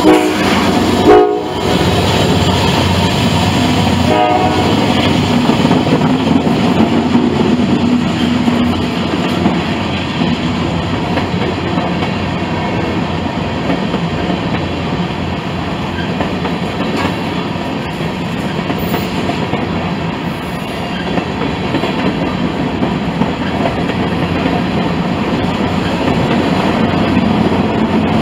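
Freight train passing close by: a locomotive horn sounds briefly at the start and again about four seconds in, with the loudest moment about a second in. After that comes the steady rumble and clickety-clack of freight car wheels rolling over the rails.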